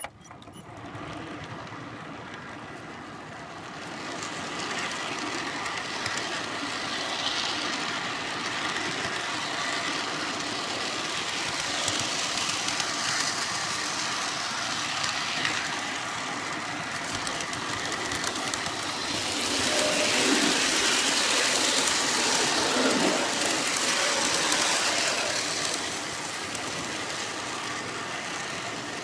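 G-scale model train rolling along garden railway track, heard from the caboose: the wheels running on the metal rails, with a faint steady whine. It starts as the train pulls away, grows louder over the first few seconds and is loudest about two-thirds of the way through.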